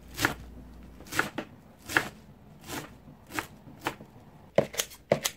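Kitchen knife chopping garlic chives on a cutting board: single sharp strokes about one a second, then a quick run of several strokes near the end.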